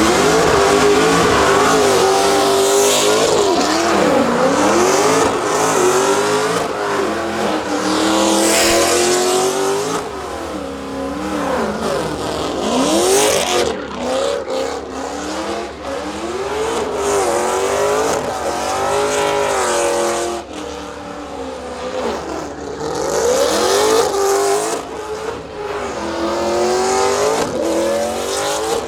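Car doing a burnout: the engine revs up and down again and again under load while the spinning tyres squeal.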